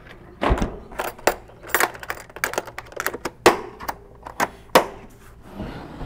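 Lid of an aluminium Iceco VL45 12-volt fridge being shut and its metal latches snapped closed: a run of sharp clicks and knocks, the loudest about halfway through.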